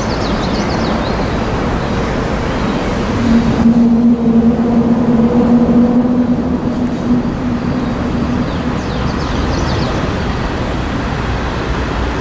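Steady outdoor rumble of road traffic. A distant locomotive horn sounds one long steady note for about five seconds in the middle. A few short high chirps come near the start and again near the end.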